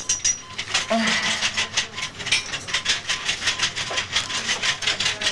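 A woman in labor panting rapidly through an oxygen mask: short, sharp breaths, about five or six a second.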